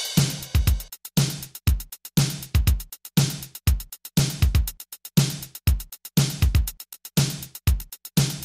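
Electronic music with a steady drum-machine beat: bass drum and sharp hi-hat strokes repeating evenly, about once a second.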